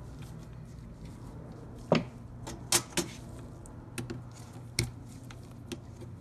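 Sharp metallic clicks and clinks, about half a dozen scattered over a few seconds, the loudest about two seconds in, as slip-joint pliers work on a starter motor's drive gear and shaft.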